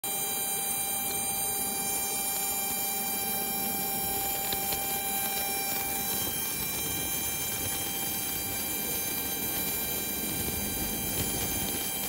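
Auxiliary power unit (APU) of a parked Embraer jet running: a steady turbine whine made of several constant whistling tones over a rushing hiss.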